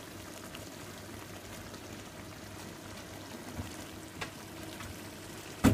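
Spiced onion-tomato sauce sizzling and bubbling in a pot, a steady soft hiss. Two faint clicks come in the second half, then a single sharp knock near the end.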